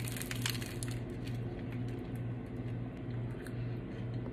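A crunching bite into toasted bread topped with bruschetta: a quick cluster of crisp cracks in the first second, then softer chewing over a steady low hum.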